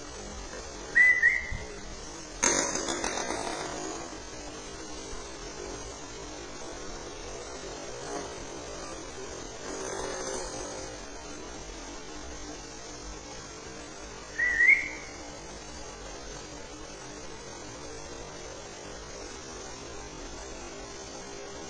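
Husky puppies playing with a ball: two short high squeaks, one about a second in and one at about fourteen seconds, and a couple of brief scuffling noises between them, over a steady low hum.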